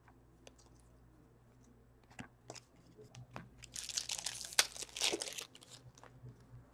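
A foil 2014-15 Upper Deck Series 1 hockey card pack being torn open and its wrapper crinkled: a dense crackling rustle lasting about a second and a half past the middle, after a few light ticks of cards being handled.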